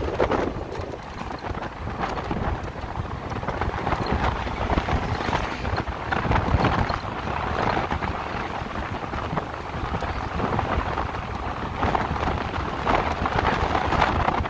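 Wind buffeting the microphone of a rider on an electric motorcycle: a steady rush of air with a low rumble, and no engine sound beneath it.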